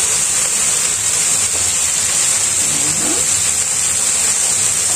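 Chicken pieces and vegetables sizzling steadily in a hot frying pan on a gas burner, with a low steady hum underneath.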